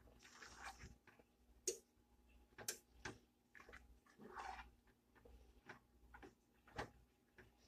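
Faint, irregular clinks of a metal fork against a glass mixing bowl, with softer scraping between them, as the fork stirs milk into stiff drop-biscuit dough.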